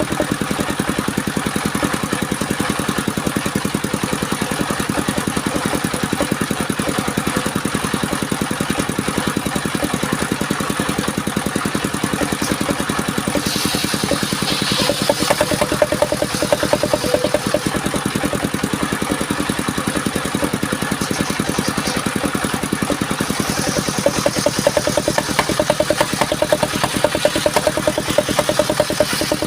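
Engine of a mobile circular sawmill running steadily with a fast, even pulsing. A higher hiss rises over it twice, about halfway through and again near the end.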